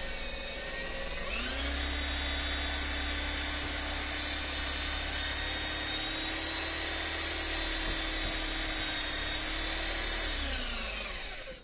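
Electric orbital polisher buffing glass polish on a glass door pane: its motor whine rises as it speeds up about a second in, runs steadily, then falls away as it winds down near the end.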